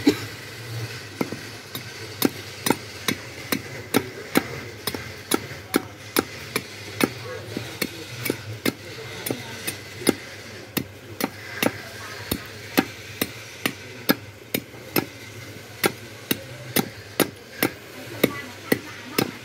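Machete chopping along a wooden billet held upright, the blade striking the wood in sharp cracks about twice a second, hewing the blank's sides to rough shape for turning.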